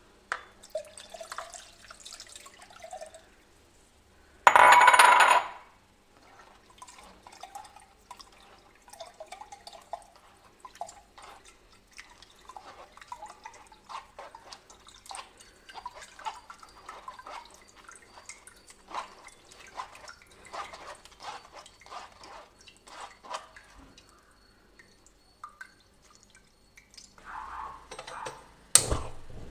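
Soaked tamarind water poured from a glass bowl through a wire mesh strainer into a clay pot, a loud splash lasting just over a second about five seconds in, then wet squelching and dripping as the tamarind pulp is squeezed by hand in the strainer. Near the end, a sharp click from a gas-stove spark lighter.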